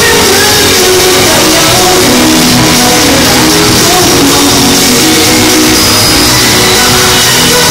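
Loud live pop concert music over an arena sound system, with singing, heard through a phone's microphone from high in the stands.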